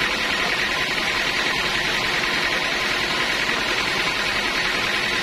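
Sawmill band saw running with a steady, unchanging machine noise.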